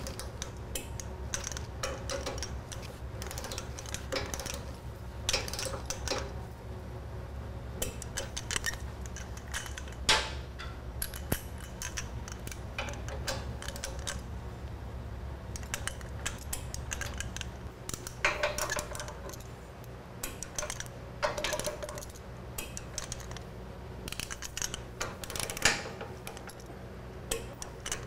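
A click-type torque wrench ratcheting and clicking as motorcycle sub-frame bolts are tightened to 40 ft-lbs, with scattered small metallic clinks of tools and hardware. A low steady hum lies underneath and lessens a little past halfway.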